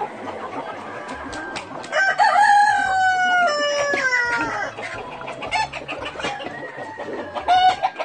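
A rooster crows once, starting about two seconds in: a long call that steps down in pitch. Hens cluck around it, and a shorter call comes near the end.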